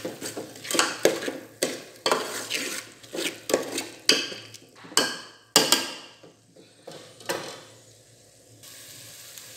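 Steel ladle stirring and scraping a thick spice masala around a metal cooking pot, with a faint sizzle of the spices frying in oil. A quick run of uneven scraping strokes stops about three-quarters of the way through.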